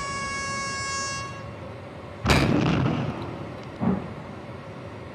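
A horn sounds one steady blast for about a second and a half. About two seconds in, explosive demolition charges go off with a sharp, loud bang, and a second, shorter bang follows about four seconds in.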